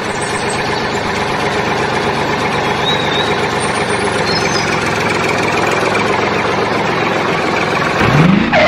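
Tractor engine running steadily at a low idle-like pace, loud and even throughout; a rising sweep sounds near the end.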